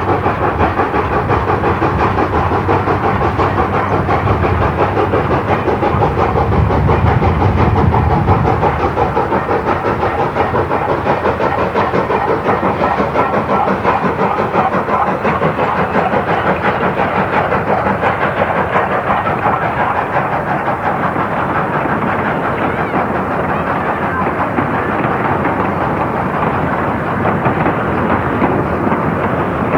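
South Australian Railways 520-class 4-8-4 steam locomotive under way, its exhaust beating in a rapid, even rhythm over steady steam hiss. Briefly louder with a heavier low rumble about seven seconds in.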